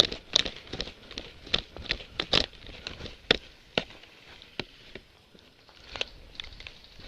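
Irregular crackling snaps, about a dozen over several seconds and uneven in spacing, like footsteps crunching through dry leaves and twigs in brush.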